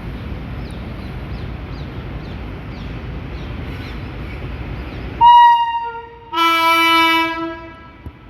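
Steady rumbling noise, then about five seconds in the air horn of a WAP5 electric locomotive sounds twice: a short higher blast, then a longer, lower one.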